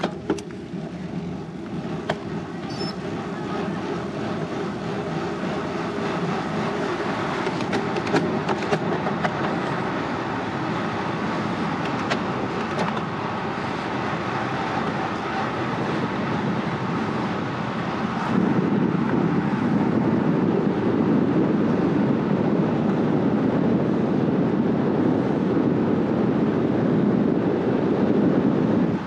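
Wind rushing over the camera microphone and road-bike tyres humming on asphalt as the bike picks up speed to racing pace, growing gradually louder; about two-thirds of the way through the rush turns deeper and louder.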